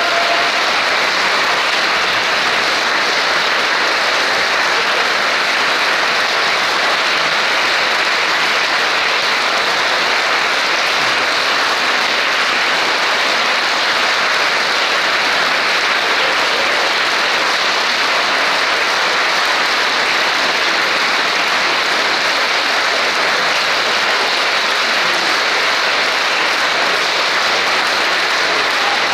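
Concert audience applauding steadily after an orchestral performance.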